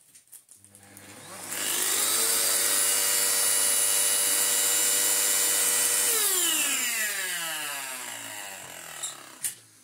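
Miele C3 vacuum cleaner motor switched on, spinning up in about a second, running steadily for about four seconds, then switched off and winding down in a falling whine. The motor is worn, and the owner thinks the bearings have gone: the fan is rubbing on its fan case, and the machine is still no good.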